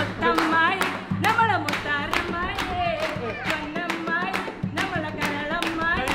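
A voice singing a song unaccompanied while several people clap along in time, about three claps a second.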